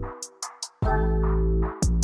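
Background electronic music with a drum-machine beat: crisp high ticks over a deep bass line that drops out briefly near the start.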